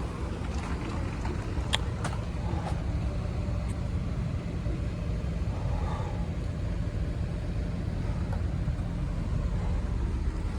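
A motor vehicle running with a steady low rumble, with a couple of faint clicks about two seconds in.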